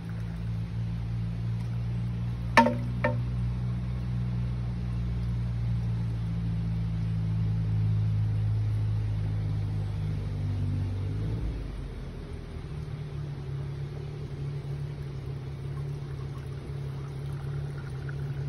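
Shishi-odoshi bamboo deer-chaser fountain: its tube tips and strikes the stone with a sharp clack, then gives a smaller second knock about half a second later, over a steady pour of running water.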